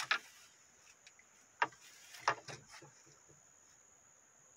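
A few short, sharp clicks and knocks in the first three seconds: handling sounds as a small traíra caught on rod and line is lifted and taken in hand. A steady, faint, high-pitched insect drone runs underneath.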